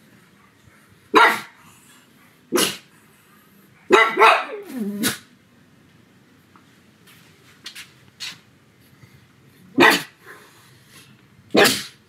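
Pug barking in single short, sharp barks with long gaps, about five in all. The one near the middle is drawn out and trails off into a falling yowl.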